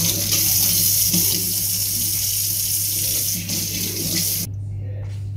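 Kitchen mixer tap running, its stream splashing over a spring onion being rinsed in the sink, as a steady hiss. It cuts off suddenly about four and a half seconds in.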